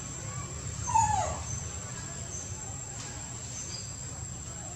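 Infant macaque giving a short whimpering call that falls in pitch about a second in, preceded by a fainter short call: the plaintive cry of a hungry baby monkey. A steady high insect-like hiss runs underneath.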